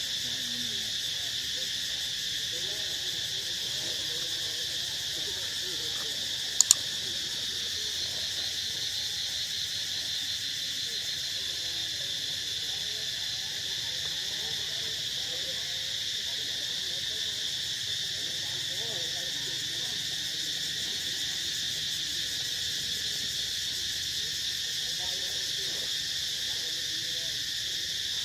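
Steady, shrill chorus of insects droning without a break, with one sharp double click about seven seconds in.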